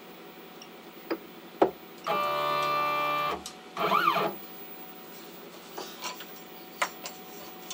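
CNC router's Z-axis stepper motor lowering the bit onto a touch-off plate with a steady whine lasting about a second, stopping abruptly at contact. A quick retract whine follows, rising and falling in pitch. A few sharp clicks and taps come from the aluminium plate and its clip being handled.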